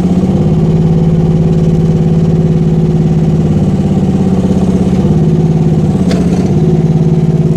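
Rippa R10 mini excavator's gasoline engine running steadily while its hydraulics press the bucket down to lift the machine. The engine note dips briefly twice, just after the start and again about five seconds in.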